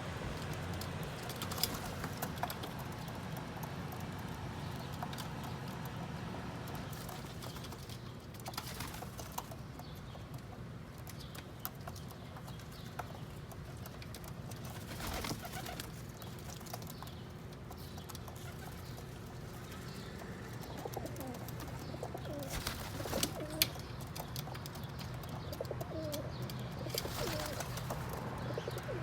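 Pigeons cooing, the wavering calls coming mostly in the last third, with a few sharp clicks and a steady low hum underneath.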